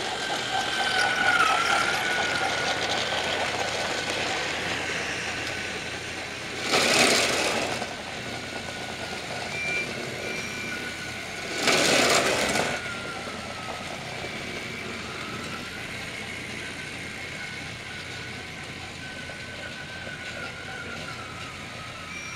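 Small battery-powered motors of Trackmaster toy trains running with a steady whine that wavers slightly in pitch. Two loud, noisy bursts of about a second each come about seven and twelve seconds in.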